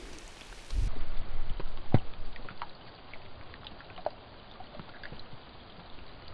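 Rain falling on a river's surface, with many single drops plinking. About a second in there is a low rumbling slosh of water close by, lasting a second or two.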